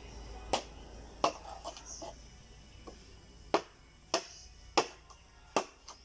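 Sharp knocks from work on a fence, about eight strikes at uneven intervals.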